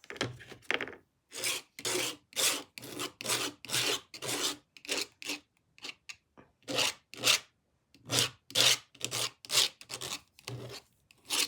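A paintbrush scrubbing thick acrylic paint onto a jigsaw puzzle's surface, in short back-and-forth strokes about two a second, with a brief pause partway through.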